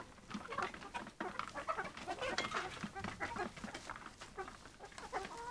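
A flock of 20-week-old Harco and Tetra pullets clucking together: many short calls overlapping one another, with a few light ticks among them.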